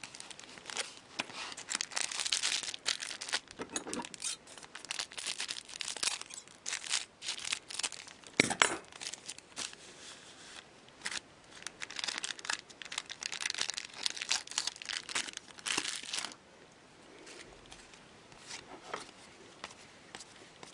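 Foil trading-card pack wrappers being torn open and crinkled, in dense crackling bursts with one loud sharp tear about eight seconds in. After about sixteen seconds it drops to sparse, quieter clicks and slides of the cards being handled.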